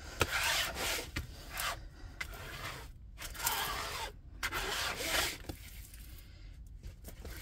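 Hand rubbing and smoothing the plastic cover sheet over a diamond-painting canvas, a series of soft swishing strokes with short pauses between them.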